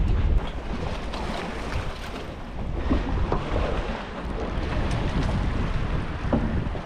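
Wind buffeting the microphone on an open boat at sea, a steady low noise.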